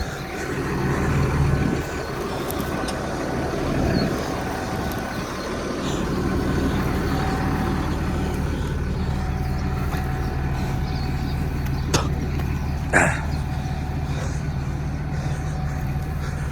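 Tractor engine idling steadily, with a sharp click about twelve seconds in and a short higher-pitched sound a second later.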